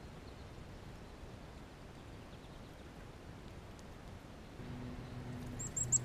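Faint outdoor background. A low steady hum comes in a little past halfway, and near the end three quick, high-pitched squeaky chirps from a small animal.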